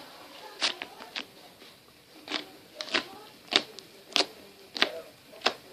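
Homemade slime of plasticine, shaving foam and shower gel being squeezed and worked by hand, giving a string of sharp, sticky pops and clicks, roughly one every half second.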